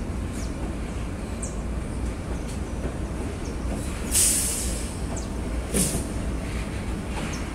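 Freight train rolling past with a steady low rumble from its wagons and wheels. A few short high squeaks come through, and two brief, louder high-pitched hisses about four and six seconds in.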